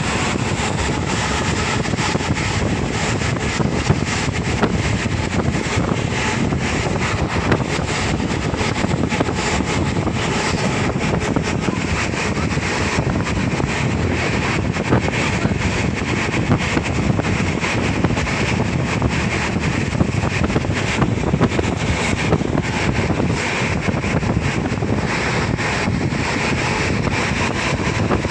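Steady running noise and wind rush of a moving vehicle heard through an open window, with wind buffeting the microphone and small irregular knocks throughout.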